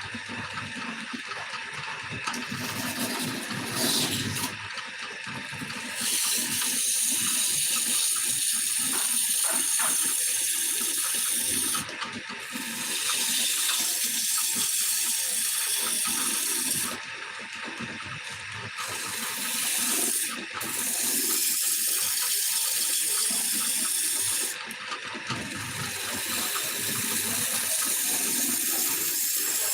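Turning tool cutting wood spinning on a lathe, a steady hiss in bouts of several seconds with short breaks between them, over the lathe's running.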